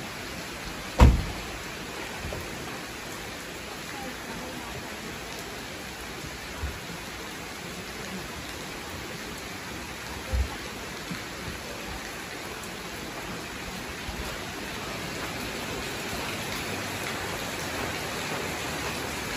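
Steady heavy rain, getting a little louder toward the end. A loud thump about a second in and a smaller one around ten seconds in.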